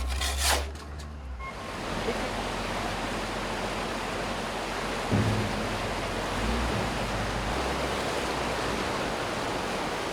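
Steady rushing of fast-flowing floodwater, a river running high. A few knocks sound in the first second or so, and a brief low thump comes about halfway through.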